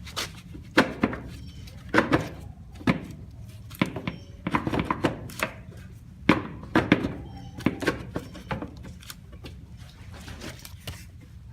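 A cover on a Kawasaki Mule 2510 utility vehicle being worked into a tight spot, with irregular knocks and thunks as it bumps against the surrounding parts. There are about fifteen sharp knocks, scattered unevenly.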